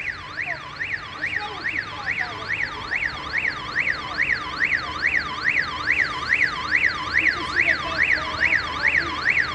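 A retail store's burglar alarm siren sounding continuously: one electronic tone sweeping rapidly up and down, about two and a half sweeps a second, as a triggered intrusion alarm.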